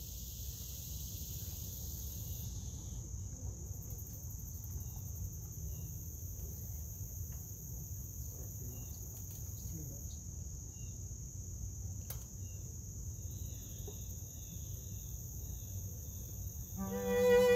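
Steady high-pitched chorus of insects such as crickets over a low outdoor rumble, with a few faint chirps. Near the end a string quartet starts playing again.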